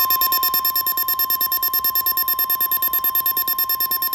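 NOAA Weather Radio warning alarm tone, a steady single high tone near 1 kHz that signals a warning is about to be read, sounding together with a rapid electronic beeping alarm at about ten beeps a second.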